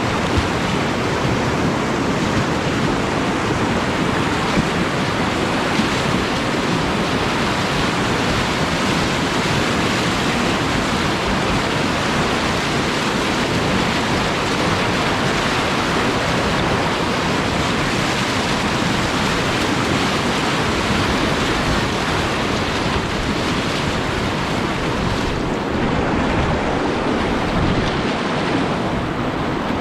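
Whitewater rapid rushing steadily: a loud, even noise of churning river water.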